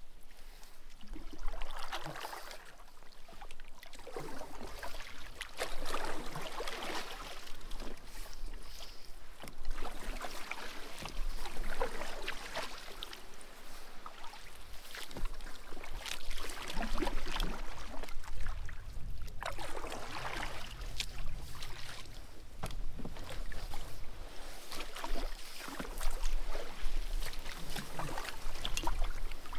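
Kayak paddle strokes dipping and pulling through lake water, a splashy swish every second or two.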